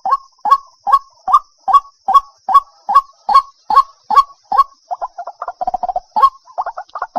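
White-breasted waterhen calling: a steady series of sharp 'kwok' notes, about two and a half a second, broken about five seconds in by quicker stuttering runs of notes before the even series resumes.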